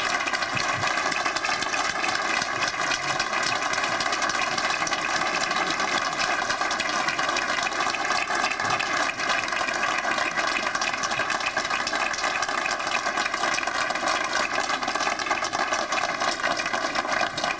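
A large crowd giving a standing ovation: dense, steady clapping from many hands.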